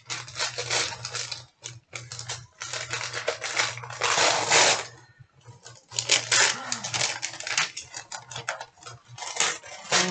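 Paper and plastic gift wrapping crinkling and rustling as it is handled and pulled open. It is a dense crackle with a short pause about five seconds in, loudest just before the pause.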